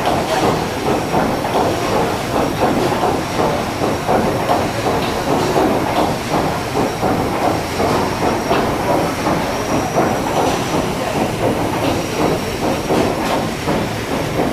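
Paddle steamer Waverley's triple-expansion steam engine and paddle wheels running at steady speed, a continuous rhythmic churning with hiss, plus a faint steady high whine.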